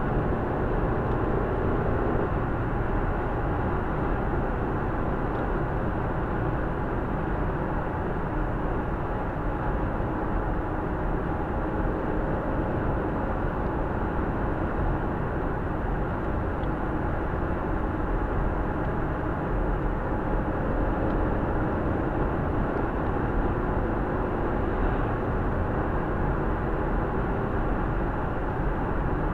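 Steady road and engine noise from a car driving along, heard from inside the cabin through a dash-cam microphone.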